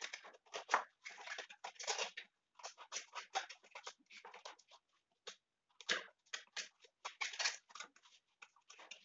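Kitchen knife slicing through and peeling off the crisp, fleshy bracts of an elephant foot yam flower: a run of short crunching and tearing crackles at irregular intervals.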